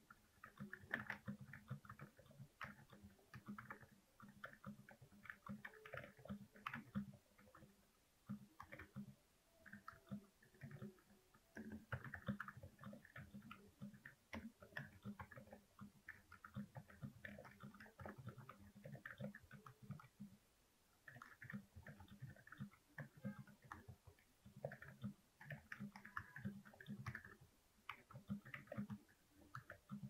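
Quiet typing on a Glorious GMMK Pro mechanical keyboard fitted with Alpaca Silent linear switches and MT3 keycaps: fast runs of soft, muted key strokes with brief lulls about 8 and 20 seconds in.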